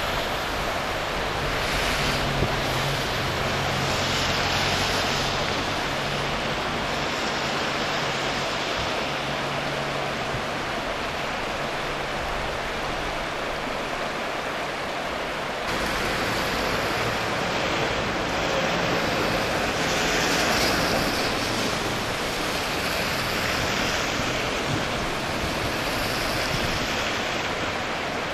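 Shallow river running fast over stones: a steady rush of flowing water. A faint low hum lies under it until about halfway, where the sound shifts slightly.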